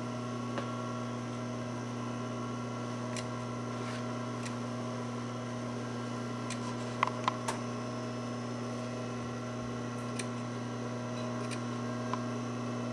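Small pointed scissors snipping into a fabric seam allowance, clipping it up to the seam: scattered short snips, with a quick run of three about seven seconds in. A steady electrical hum runs underneath.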